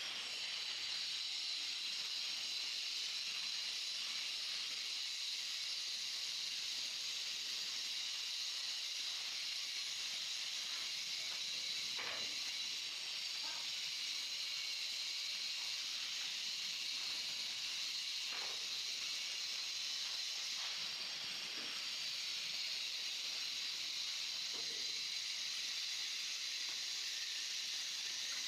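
Steady high hiss, with a few faint taps and scrapes of a trowel working mortar on a stone stair step.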